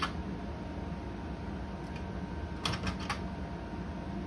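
Steady hum of a powered-up IGT slot machine, with a quick run of about three sharp clicks about two-thirds of the way in as the machine is handled.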